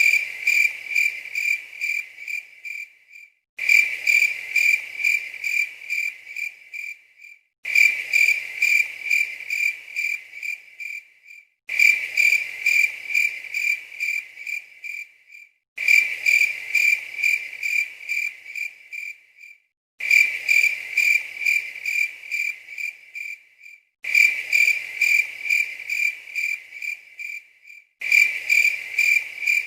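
Cricket chirping: a steady train of high, even chirps about three a second. It is a recording looped every four seconds, each repeat starting abruptly after a short silent gap.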